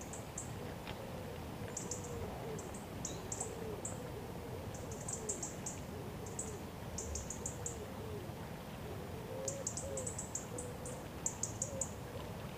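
Birds singing: bursts of quick, high chirps come again and again, alongside a low call repeated in a slow series of rising-and-falling notes. A steady low rush of flowing river water runs underneath.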